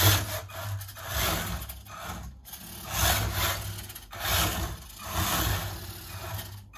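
Small electric RC model tractor driving, its motor and gears whirring in repeated short bursts about a second apart. The owner traces a fault in it to the servo.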